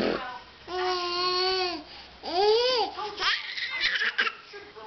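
A toddler's voice: a long held note about half a second in, then a squeal that rises and falls in pitch, then short babbling sounds.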